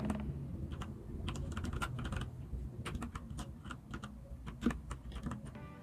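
Huo Ji CQ84 mechanical keyboard with brown switches: keys pressed one at a time at an uneven pace, a run of separate clicks.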